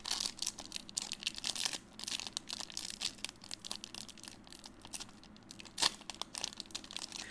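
Foil booster pack wrapper crinkling and crackling in the fingers as it is worked at and torn open, with a louder rip a little before six seconds in.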